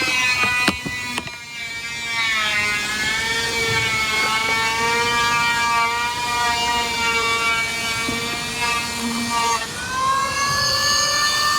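A power tool's motor running at speed. Its pitch sags from about two seconds in, as it does when the tool is under load in the work, and rises sharply again near the end as the load comes off.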